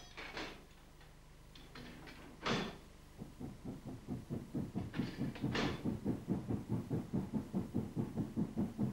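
Steam locomotive exhaust beats from a train climbing the Lickey incline toward the box, an even chuff of about four beats a second that starts about three and a half seconds in and grows louder. A few sharp knocks come before it, the loudest about two and a half seconds in.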